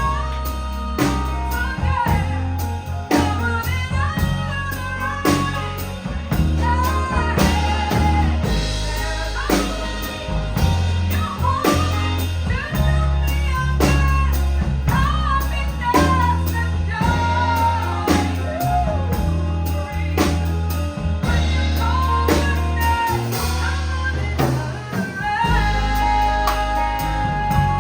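Live band playing a soul-pop ballad, with drum kit, a heavy bass line and guitar, under a woman's voice singing long, bending melodic lines.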